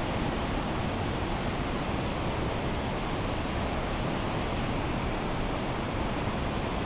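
Whitewater rapids rushing through a narrow rock gorge: a steady, loud roar of water.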